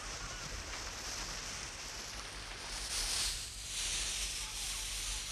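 Sea water washing over shore rocks, a steady hissing surf that swells briefly about three seconds in.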